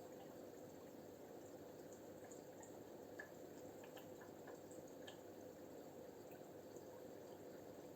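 Air bubbles rising through aquarium water: a faint, steady burble with small pops scattered through it.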